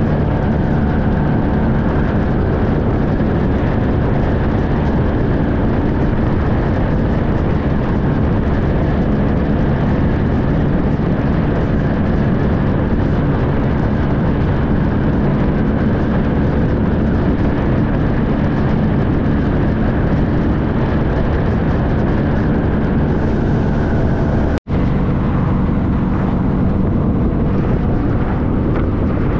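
Motorcycle riding at highway speed: the Honda VFR1200X's V4 engine running steadily, under the rush of wind. About three-quarters of the way through, the sound cuts out for an instant.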